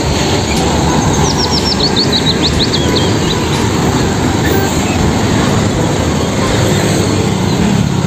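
Steady noise of road traffic, with motor scooters passing. About a second in, a bird chirps a rapid run of a dozen or so notes that fall in pitch.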